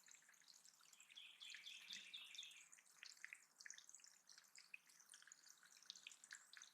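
Faint water dripping and trickling into a backyard bird pond, with scattered bird chips and a buzzy trilled song about a second in.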